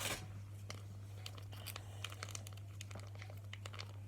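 Plastic fidget toys handled close to the microphone: a scatter of small clicks and crinkling. A steady low hum runs underneath.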